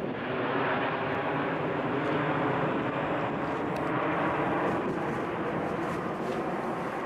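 Jet engines of a four-engined widebody airliner passing low overhead and moving away: a loud, steady noise with a faint hum running through it, easing slightly toward the end.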